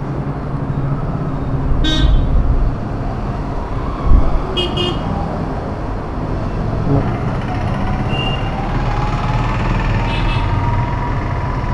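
Street traffic rumbling steadily, with several short vehicle horn toots: one about two seconds in, a quick double toot around five seconds, and more near the end.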